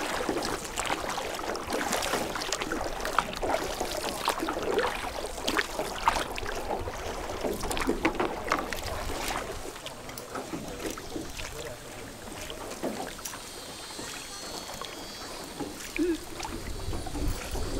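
Oars dipping and water splashing around a hand-rowed boat on a river, with irregular splashes and knocks from the strokes.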